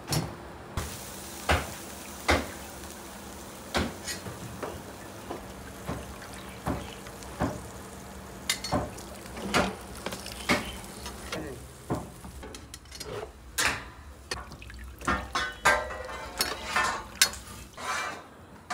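Irregular metal clanks and knocks of cooking pans and a ladle against a large aluminium pot, with liquid sloshing and being ladled. The strikes come thicker and ring more in the last few seconds.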